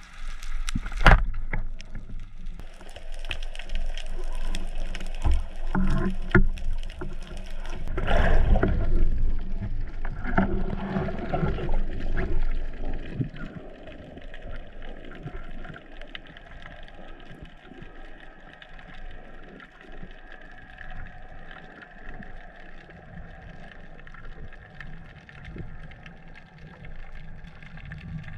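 Sea water sloshing and rushing around a camera mounted on a speargun as the diver moves through the water, with a few sharp knocks in the first half. It settles into a quieter, steadier underwater hiss about halfway through.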